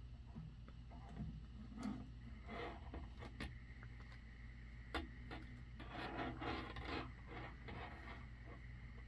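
Handling of a hard-shell carrying case and its packaging: rubbing and scraping with a few sharp clicks and taps, busiest around the middle.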